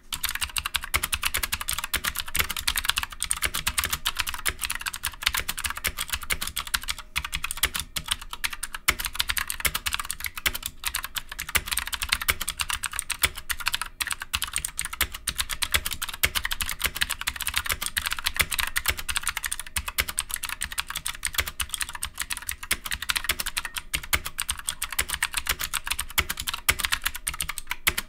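Continuous fast typing on an Ajazz AK60 mechanical keyboard with Ajazz blue clicky switches: a dense, unbroken stream of sharp key clicks.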